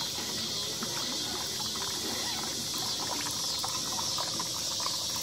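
Juice trickling from a cooler's drink dispenser spout into a plastic cup, over a steady high hiss.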